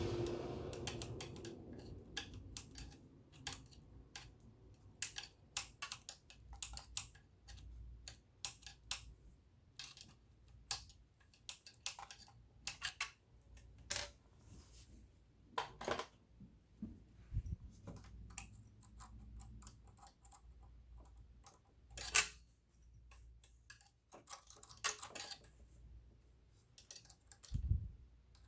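Scattered, irregular light clicks and taps of metal parts and tools being handled on an all-metal sewing machine during cleaning, with one sharper knock about three-quarters of the way through.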